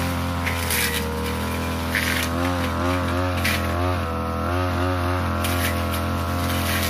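Backpack brush cutter's 42cc engine running at high throttle, its pitch wavering as the blade bites into thick brush. Short hissing swishes recur every second or so as stems are cut.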